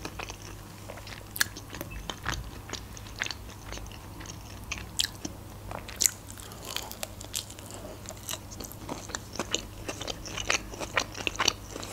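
Close-up sound of a person biting and chewing a sushi roll: irregular soft crunches and wet mouth clicks. A faint steady low hum runs underneath.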